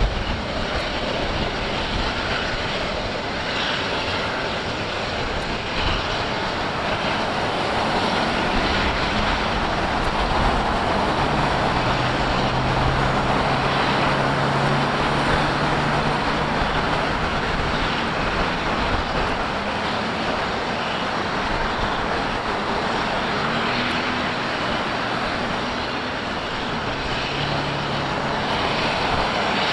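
Steady road traffic noise of cars and trucks passing close by. A low engine hum sounds for several seconds in the middle.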